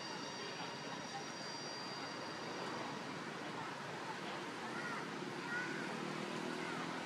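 Steady outdoor background noise, like a distant engine drone, with faint high steady tones that fade out early. A few short, faint chirps come about halfway through.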